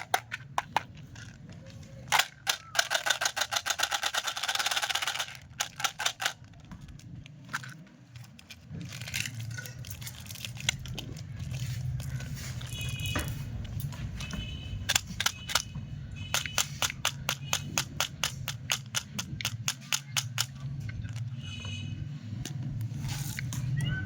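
Plastic candy packaging handled and opened close to the microphone: a long run of sharp clicks and crackles, with a dense crinkling burst a few seconds in and short squeaks later on.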